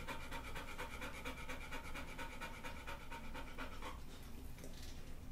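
A large yellow dog panting rapidly with quick, even breaths while recovering two days after intestinal surgery; the panting eases off about four seconds in.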